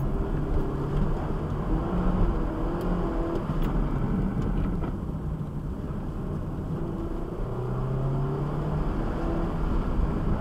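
Mini Cooper engine heard from inside the cabin, pulling hard and easing off in turn, its pitch climbing and dropping several times over a steady rumble of road and tyre noise.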